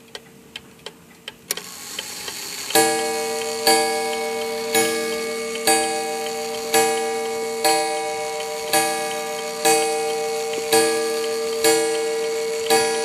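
1881 Ansonia marble mantel clock: the open-escapement movement ticks briefly, then about three seconds in the strike train begins hitting the gong about once a second, eleven strokes, each ringing on into the next, counting out the hour.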